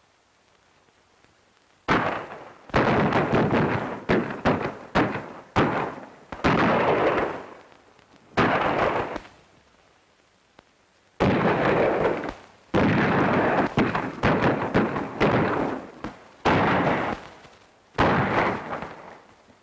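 A gunfight: a rapid, uneven volley of about twenty gunshots, each with a ringing echo tail, beginning about two seconds in and pausing briefly midway.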